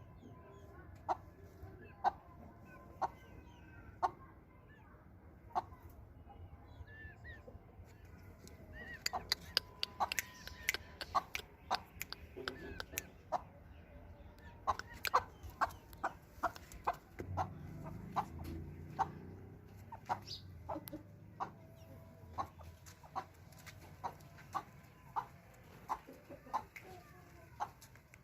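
Aseel hens clucking: short sharp clucks, about one a second at first, coming faster and more crowded from about nine seconds in, then settling back to a steady pace.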